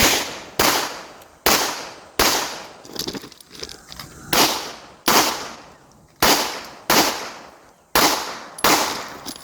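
A pistol fired in a rapid string of about eleven shots, spaced roughly half a second to a second apart with one longer pause in the middle, each crack trailing off briefly.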